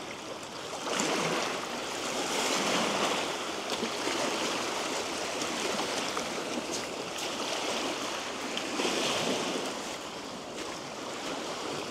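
Steady rush of moving water that swells and eases every couple of seconds, with a few faint clicks.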